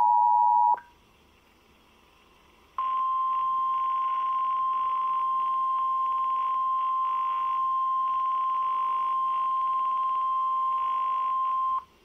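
Emergency Alert System alert tones: the two-tone attention signal stops under a second in, and after about two seconds of near silence a single steady high alert tone sounds for about nine seconds, then cuts off.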